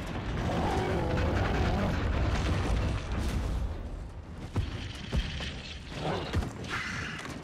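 Film battle sound effects: a deep rumbling boom that swells and fades over the first three seconds, followed by lower hiss and a few sharp knocks in the second half.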